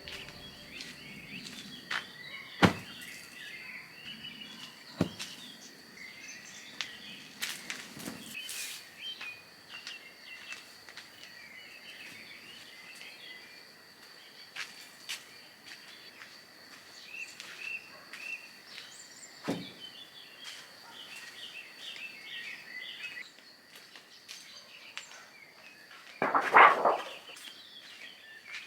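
Small birds chirping over a steady high thin tone, with a few sharp knocks scattered through and a brief louder noisy burst near the end.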